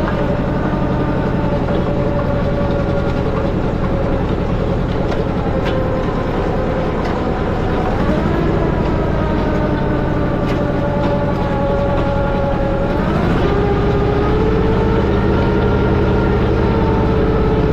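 Allis-Chalmers tractor engine running steadily, its speed picking up twice, about eight seconds in and again around thirteen seconds.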